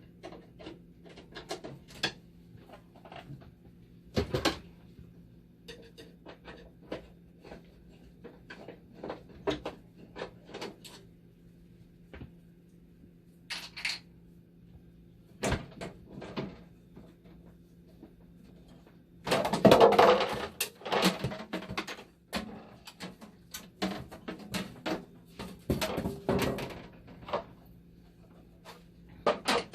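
Parts and screws of a dialysis machine's casing and power supply being handled and removed: scattered clicks and knocks, with a dense loud clatter about twenty seconds in, over a steady low hum.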